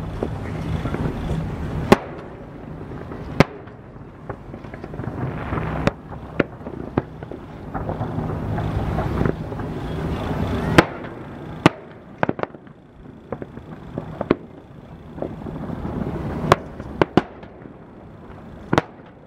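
Aerial firework shells bursting, about fifteen sharp bangs at uneven intervals, some coming in quick clusters.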